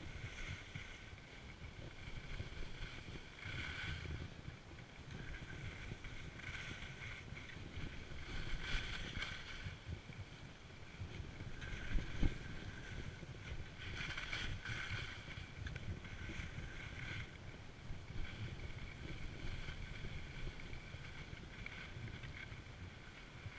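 Skis or board edges scraping and hissing over packed, groomed snow during a run, swelling in surges every few seconds with each turn, over a steady low rumble of wind buffeting the action camera's microphone. A couple of sharp knocks sound about halfway through.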